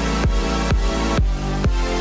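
Electronic dance music with a steady kick-drum beat, a little over two beats a second, under sustained synth layers.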